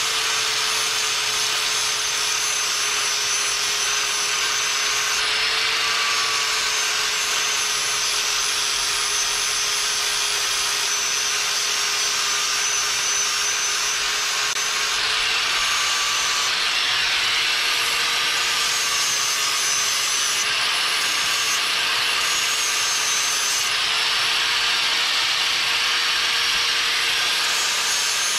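Electric angle grinder grinding a steel lawn mower blade to sharpen its edge: a steady motor whine over a harsh grinding hiss, the pitch sagging slightly now and then as the disc bears on the steel.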